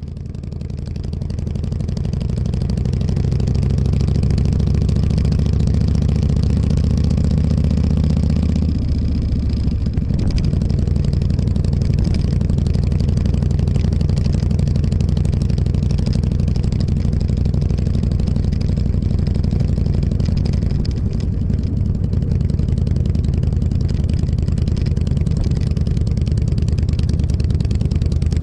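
Motorcycle engine pulling away and building speed. About nine seconds in the engine note changes and turns rougher, then holds steady at speed for the rest of the clip.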